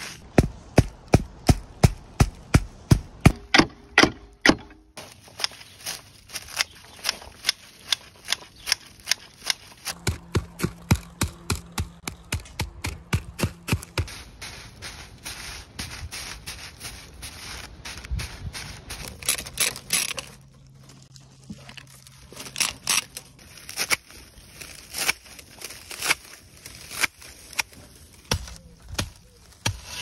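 Thatching on a reed roof: a thatcher's leggett beating the butts of the laid reed into place, giving sharp rhythmic knocks about three a second. The knocks come in several short runs with breaks between them.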